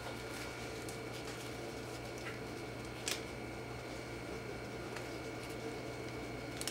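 Room tone with a steady low hum and a faint high whine, with faint small handling clicks and one sharp click about three seconds in.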